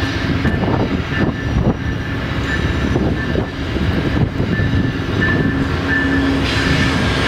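Amtrak GE P42DC diesel-electric locomotive approaching at low speed: a steady engine drone with a steady hum and a higher whine over it, growing a little louder and hissier near the end as the train draws near.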